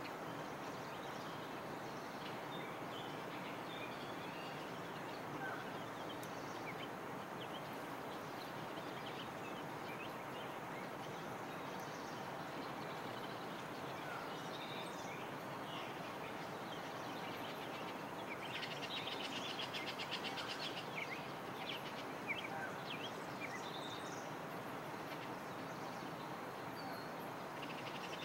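Faint outdoor ambience: a steady background hiss with scattered small bird chirps, and a rapid buzzing trill about two-thirds of the way through.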